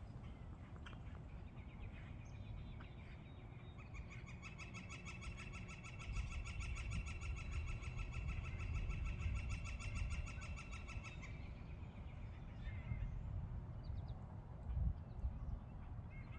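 An animal's long, fast trilling call, evenly pulsed, starting about four seconds in and lasting about seven seconds. It runs over a low, uneven rumble.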